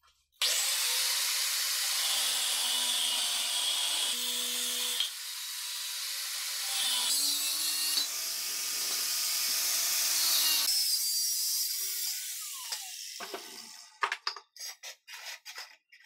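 Angle grinder with a cut-off disc cutting through square steel tubing: a loud, steady grinding hiss for about ten seconds, then the disc winding down as the tool is switched off. Near the end, a few sharp clinks as the cut steel pieces are set down on the bench.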